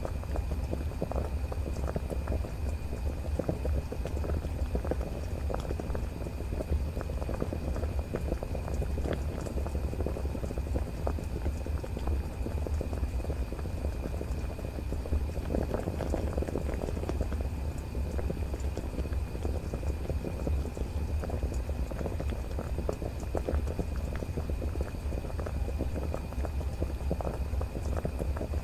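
Water at a rolling boil in a cooking pot, with cinnamon stick and cardamom pods simmering in it: dense, steady bubbling and popping over a low rumble.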